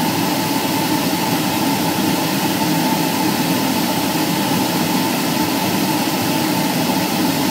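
Airplane engine and propeller heard inside the cockpit during flight: a steady, unchanging drone with a faint steady whine running through it.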